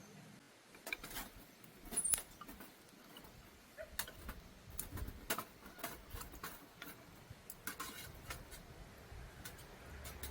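Irregular light clicks, clinks and knocks of small objects being handled, loudest about two seconds in.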